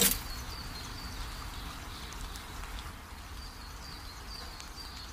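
Quiet outdoor background: a steady low hiss with faint, short, high chirps now and then.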